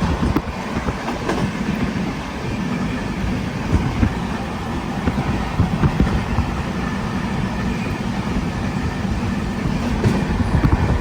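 Steady rumble of a moving vehicle, with irregular small knocks and rattles throughout.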